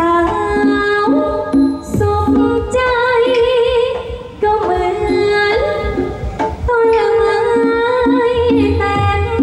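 A woman singing a Thai likay song through a headset microphone and the stage PA, in long held notes with a wavering vibrato. A band with a low drum beat accompanies her.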